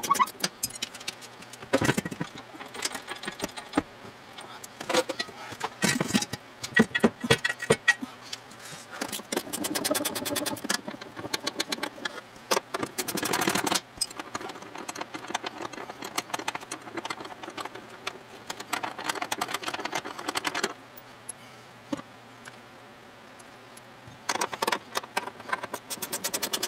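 Hand ratchet clicking as bolts are worked loose on a pickup truck's door hinges, among scattered metal clinks and knocks of tools and hardware; a fast run of even ratchet clicks comes near the end.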